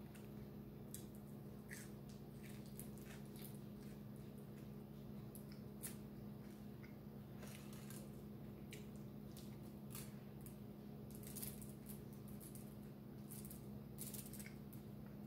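Faint eating sounds: scattered soft clicks and smacks of chewing, and of fingers picking grilled fish and rice off a foil-lined tray, at irregular moments. A steady low hum sits underneath.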